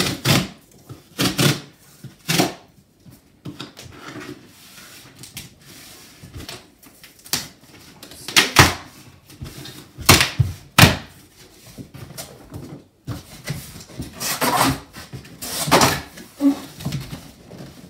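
Corrugated cardboard box being ripped open along its pull-tab tear strip: a series of short, separate tearing rips with rustling between, then the cardboard lid flaps folded open near the end.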